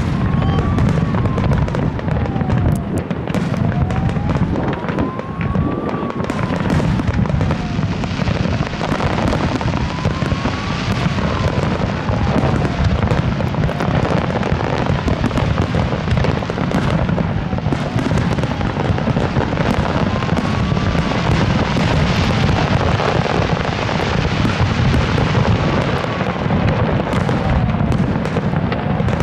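Fireworks display: a continuous barrage of shell bursts with booming rumble and dense crackling. Behind it, a faint wailing tone rises and falls over and over, about once every five seconds.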